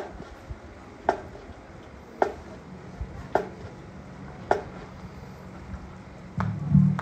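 Short, sharp clicks at an even pace, about one a second, over a low background haze.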